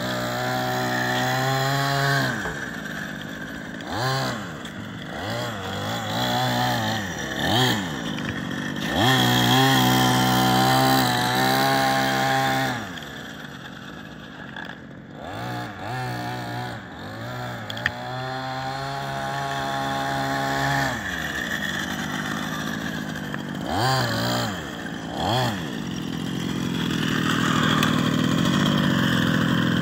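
Small two-stroke petrol engine of a 1/5-scale VRX DVS gas RC buggy running while the car is driven. The revs rise and fall again and again, with long pulls at high revs, short throttle blips, and a fainter stretch in the middle as the car runs farther off.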